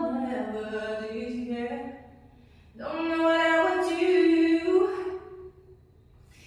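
A woman singing a cappella, without accompaniment: two long held phrases, the second starting about three seconds in after a short breath.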